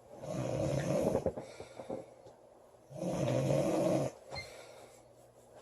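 A girl snoring loudly in her sleep: two long snores about three seconds apart, with quieter breathing between them.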